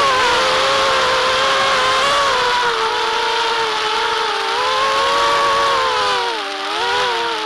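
Switchblade FPV racing quadcopter's Titan 2204 2300 kV brushless motors and propellers whining in flight, the pitch dipping and rising with the throttle, twice sinking lower for a moment around six and a half seconds in.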